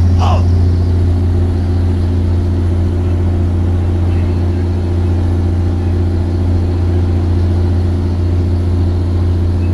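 Fishing boat's diesel engine running at a steady low drone, with a brief higher squeak or call right at the start.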